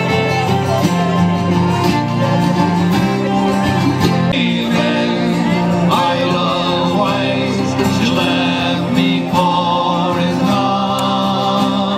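Folk band of squeezeboxes playing an instrumental passage of a song, with sustained reed chords under a melody.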